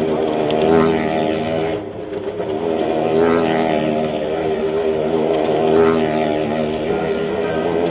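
Motorcycle engine running at steady revs as the bike circles the wooden wall of a well of death. Its note swells and fades about every two and a half seconds as the bike comes round.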